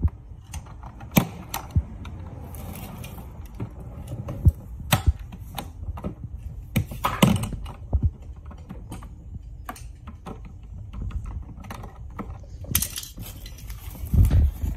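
Plastic parts of a Ryobi ONE+ 18V wet/dry shop vacuum being handled and fitted together: irregular clicks and knocks, with a few heavier thumps near the end.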